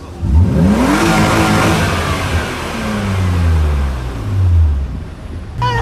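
A car with a loud exhaust revs up quickly, the engine note rising fast, then gives a loud burst of exhaust noise. The engine note then falls and settles low.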